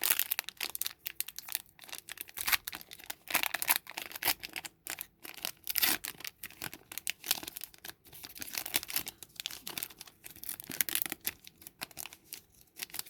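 A foil booster pack wrapper crinkling and tearing as it is worked open by hand: a dense, irregular run of crackles.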